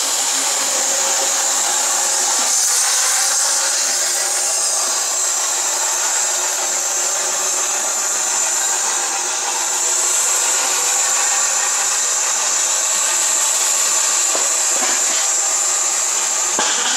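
Steam locomotive letting off steam: a loud, steady, high hiss, with a few faint knocks near the end.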